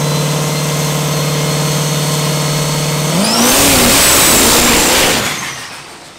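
Diesel drag truck engine held at a steady raised rpm, then launching about three seconds in: the pitch climbs, a high whistle rises with it, and the sound grows loudest before fading away over the last second.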